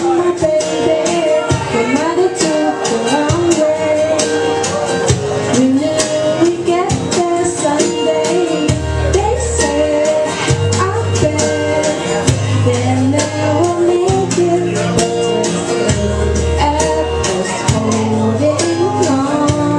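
A woman singing a melody into a microphone over instrumental accompaniment with a bass line and percussion.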